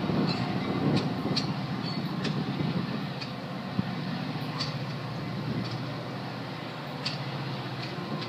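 Metra commuter train rolling away over the rails: a steady rumble with scattered short, high clicks from the wheels and track.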